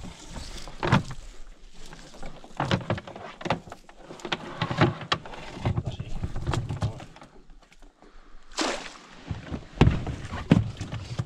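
Irregular knocks, thumps and clicks in a small boat as a wet casting net and a just-caught small carp are handled, with a short rushing splash of water about eight and a half seconds in.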